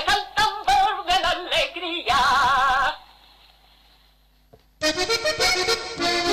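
A singer finishes a Panamanian tamborito with its closing phrase, ending on one long held note with vibrato about two seconds in. After roughly two seconds of near silence, another piece of music starts near the end.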